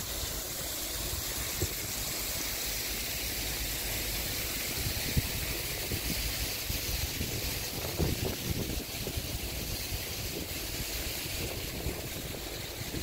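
Wind buffeting the microphone on an open ship's deck: a steady rushing with uneven low rumbles and a few soft thumps.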